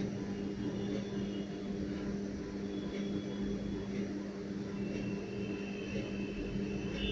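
Steady low mechanical hum, unbroken, with faint thin high tones coming in and out about a second in, three seconds in and again from about five seconds in.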